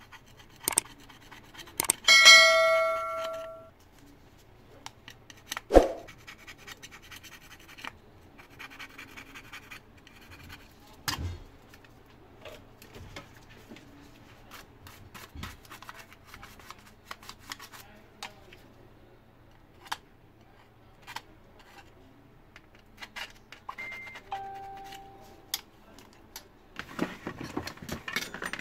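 Irregular clicks and taps of small metal hand tools and a satellite receiver's metal chassis being handled, with a bright ringing ding about two seconds in and a shorter, fainter ding shortly before the end. A burst of scraping from a metal pick prying at the board closes it.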